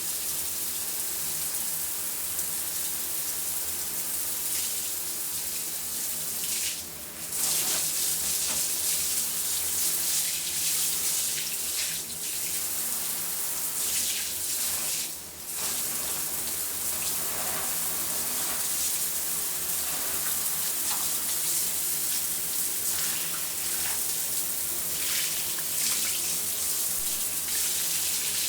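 Shower running: a steady spray of water hissing, with the sound dipping briefly twice, about a quarter of the way through and again around halfway.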